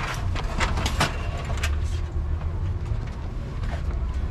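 A vehicle driving, with a steady low rumble of engine and road, and several sharp knocks or rattles in the first two seconds.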